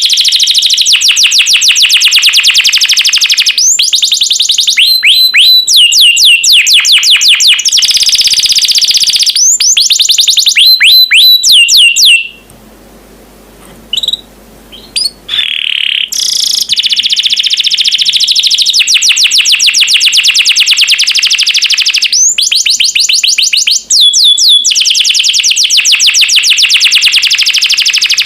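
Domestic canary singing a loud, long song of fast trills and rapid runs of repeated chirping notes. It breaks off for about three seconds near the middle, with a couple of short notes in the gap, then carries on.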